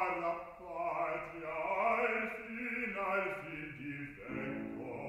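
Operatic bass voice singing a sustained, unaccompanied line. About four seconds in, a piano chord enters and rings on under the voice.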